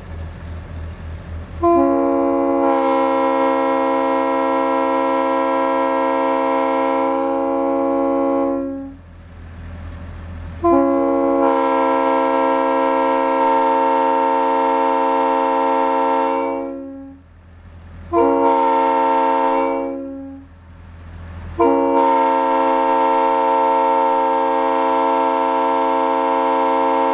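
Leslie S3L tab-back three-chime locomotive air horn blowing a chord in four blasts: long, long, short, then a long one that is still sounding at the end. This is the railroad grade-crossing signal.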